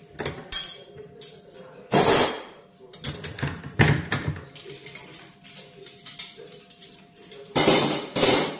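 Metal cutlery and dishes clinking and clattering as they are taken from a dish rack and dried by hand: irregular knocks, with louder clatters about two seconds in and near the end.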